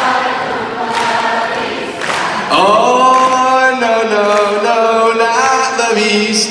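A large crowd singing a camp chant together. About two and a half seconds in, the voices swoop up into a long held note that then steps through several pitches.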